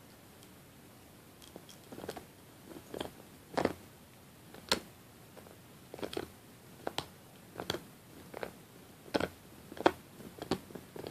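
A dog gnawing a Nylabone chew bone: irregular sharp clicks and crunches of teeth on the bone. The chewing starts about two seconds in and comes every half second to a second after that.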